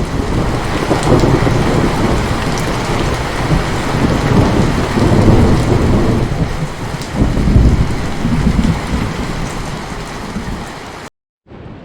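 Heavy rain falling steadily, with rolling thunder rumbling low underneath and swelling several times. Near the end the sound cuts out for a moment, then the rain comes back quieter.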